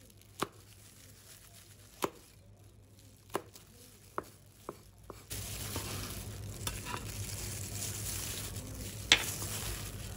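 Metal cleaver knocking on a wooden chopping board as garlic cloves are smashed flat: single sharp knocks at irregular intervals. About five seconds in, a steady hiss sets in, with one loud knock near the end.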